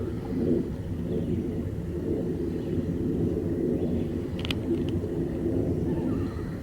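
1969 55 hp Johnson outboard motor running steadily at a constant speed, pushing the boat along. A couple of sharp clicks come about four and a half seconds in.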